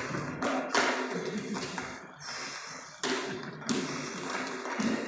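Juggling clubs knocking and clattering against each other as they are handled, a string of irregular taps and knocks.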